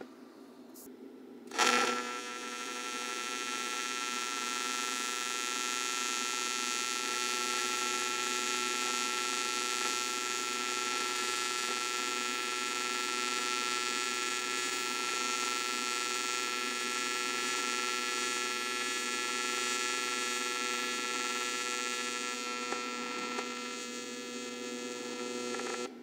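AC TIG welding arc on aluminum, struck with a sharp crackle about a second and a half in, then a steady electric buzz with a hiss that cuts off just before the end. The machine is set to a 50% balanced AC wave, which the welder says gives excessive cleaning action, loses arc stability and makes the tungsten ball up.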